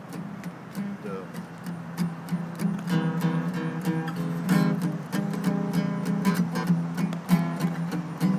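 Acoustic guitar being strummed as an intro to a song, the chords getting fuller and louder about three seconds in.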